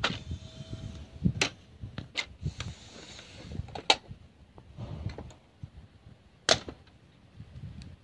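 Plastic clicks and knocks from a Barbie toy dollhouse being handled, its hinged doors and window frames snapping: four sharp clicks among softer taps, over low rustling.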